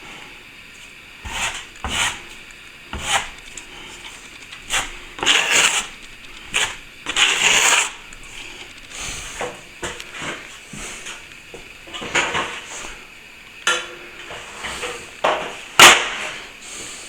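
Plastering tools at work: about a dozen irregular short scrapes and clinks of metal tools on plaster, one with a brief metallic ring, the loudest near the end.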